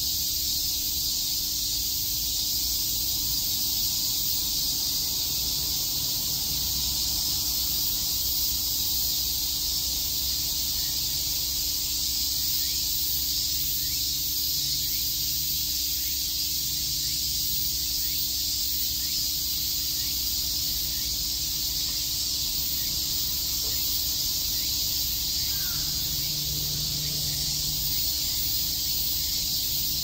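A chorus of summer cicadas, buzzing steadily and densely at a high pitch without a break, over a faint low rumble.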